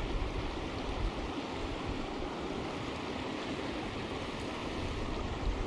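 Steady rush of running water from a creek below a drain, with wind rumbling on the microphone in the first second or so and again near the end.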